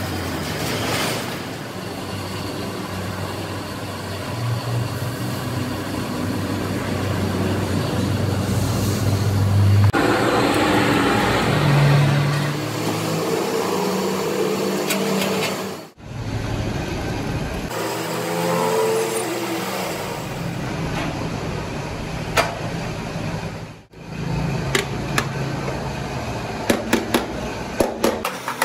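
Steady engine hum, with light, irregular hammer taps on the metal top tank of a truck radiator in the last few seconds.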